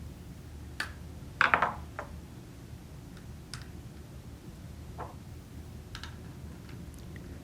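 Light, scattered clicks and taps of a Phillips screwdriver and small screws on the plastic housing of an electric pencil sharpener as the cutter-cover screws go back in. The loudest is a brief clattery rattle about a second and a half in, with a low steady hum underneath.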